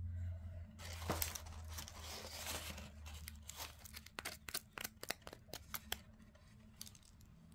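Kitchen knife cutting through a crunchy, oven-baked garlic bread slice: a rough scraping at first, then a quick run of sharp crackles and snaps from the crisp crust that fades out near the end.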